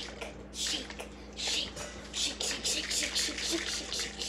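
Orange juice and milk sloshing inside two plastic cups held rim to rim, shaken back and forth in repeated swishes every half second to a second.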